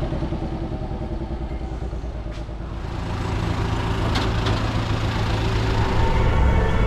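Motor vehicle engine running, the hum getting louder and steadier from about three seconds in.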